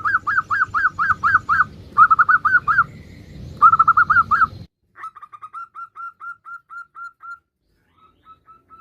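Female zebra dove giving rapid, chattering staccato calls, a quick run of notes about six a second, in three loud bursts. A little over four seconds in, the background hum cuts off and a fainter, evenly paced string of the same notes carries on.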